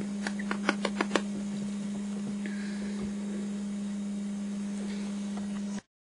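About seven quick, sharp clicks over the first second or so, then only a steady low hum, which cuts off suddenly near the end.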